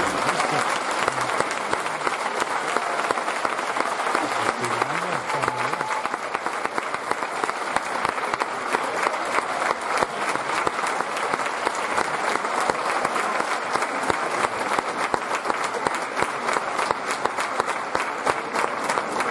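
Audience applauding, a dense, steady clapping that keeps going without a break, with a few voices calling out over it.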